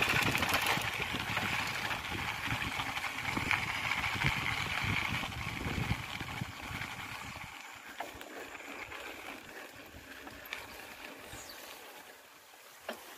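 Mountain bike rolling along a dirt road: wind buffeting the camera's microphone over the rattle of tyres and frame. About seven or eight seconds in the rumble drops away and the noise fades as the bike slows, leaving a few faint clicks near the end.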